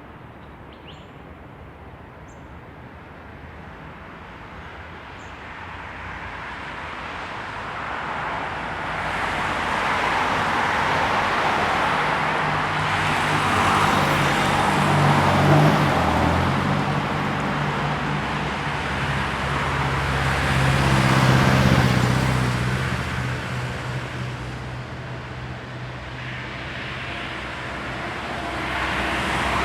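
Busy main-road traffic with cars passing by: steady tyre hiss and engine hum that swell as vehicles go past, loudest about 15 and 21 seconds in.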